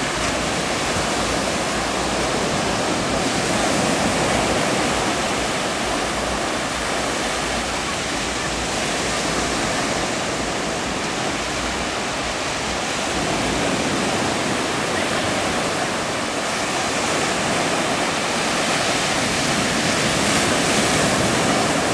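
Ocean surf breaking and washing up the shore: a steady rushing wash that swells and eases every several seconds.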